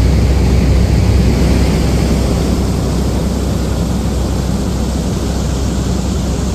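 Fire engines running and pumping, a steady loud rushing noise over a deep rumble, with no breaks or single events.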